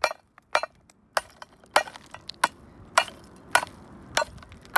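Hammer tapping hardened concrete off a steel baseplate, about eight sharp strikes at a steady pace of roughly three every two seconds, each with a short clink.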